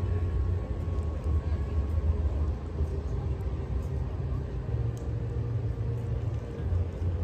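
Wind buffeting the phone's microphone: an uneven low rumble over faint outdoor street ambience.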